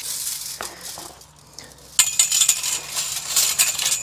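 Steel chain-link fence wire jingling and clinking as it is pulled and handled around a kennel's pipe frame, louder and denser from about halfway through.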